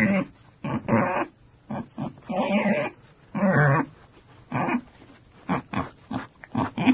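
An animal giving a series of harsh grunting or growling calls, some short and some about half a second long, with short pauses between them.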